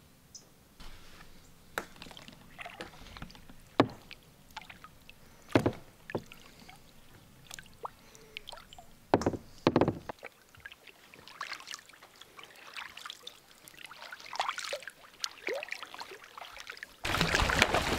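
Kayak paddling: several sharp knocks of the paddle and gear against the kayak, then paddle strokes with water splashing. A sudden louder rushing noise sets in near the end.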